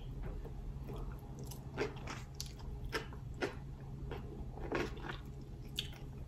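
A person chewing a mouthful of saucy, cheese-covered fries, with short wet mouth clicks and smacks every half second or so.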